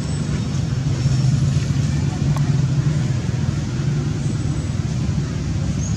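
Steady low mechanical hum, as of a motor running, holding even throughout.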